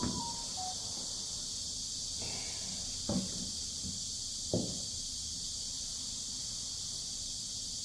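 A steady high-pitched hiss with a few short knocks: one at the start, then two more about three and four and a half seconds in.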